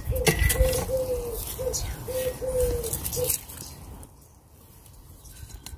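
A pigeon cooing: a run of short, low coos, about eight notes of varying length, stopping a little over three seconds in. Low rustling and knocking from digging sits underneath.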